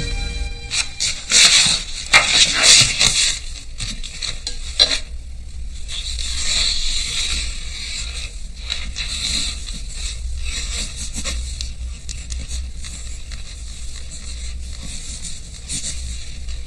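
Sheets of paper handled and laid down, with sharp rustles and slides in the first few seconds. Then a pen nib scratches steadily across the paper as it draws.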